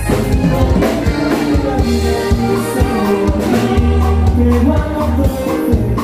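A norteño band playing live dance music, with a bass line, a drum kit and singing.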